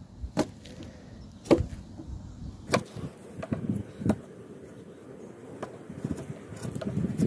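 A wood chisel struck into timber: four sharp strikes about a second apart, the second the loudest, then lighter taps and scraping as the chisel cuts.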